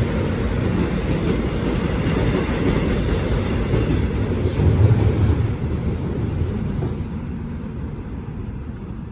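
Seoul Subway Line 1 train running along the track at the platform, a loud steady rumble of wheels and cars that swells to a peak about five seconds in and then fades away, with a couple of faint high wheel squeals in the first few seconds.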